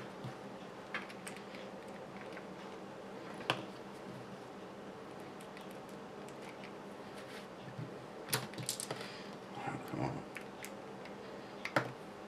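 Scattered light clicks and taps of small kit parts and screws being handled on a workbench, with a few sharper clicks about three and a half seconds in, around eight to ten seconds, and near the end.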